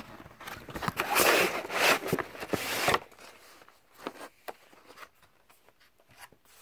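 Cardboard phone packaging being slid open, a rough scraping rush lasting about two seconds, then a few light taps and clicks as the box is handled.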